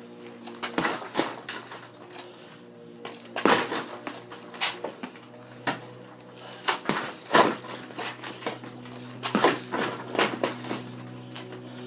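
Punches landing on a heavy bag: irregular sharp thuds, sometimes in quick pairs, over a steady low hum.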